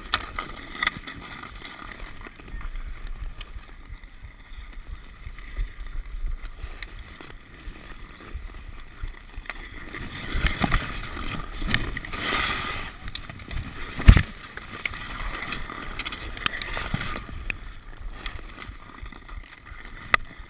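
Ice skate blades scraping and carving over rough outdoor pond ice, close up, with scattered clicks and taps from hockey sticks. One loud sharp knock about fourteen seconds in.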